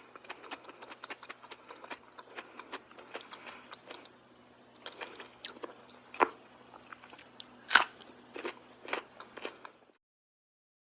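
Close-up chewing and biting of crunchy food: a quick run of small crackling crunches, then a handful of louder separate bites, the loudest about eight seconds in. A faint steady hum sits underneath, and the sound stops abruptly about a second before the end.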